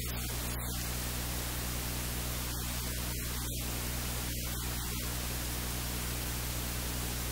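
Steady hiss over a low, constant hum, with no other sound standing out: electrical noise in the recording.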